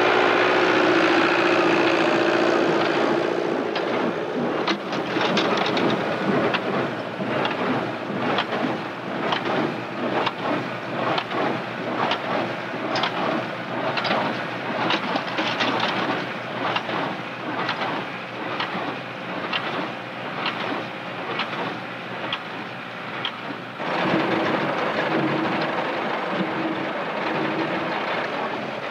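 Tractor-drawn small square hay baler at work: the tractor engine and PTO-driven baler run steadily, with the baler knocking in an even rhythm a little under two times a second. Near the end the knocking stops and only the steady running of the tractor and driveline is left.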